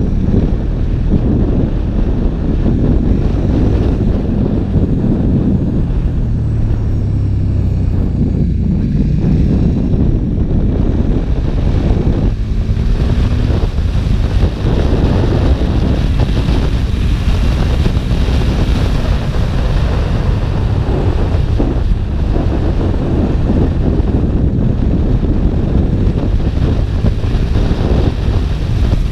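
KTM 1290 Super Duke's V-twin engine running at road speed under heavy wind noise buffeting the microphone.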